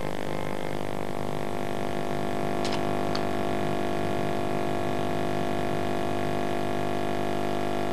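Electric guitar ringing through a small amplifier in long held notes, with one high note sustained steadily from about a second and a half in. Two light clicks come a little before the middle.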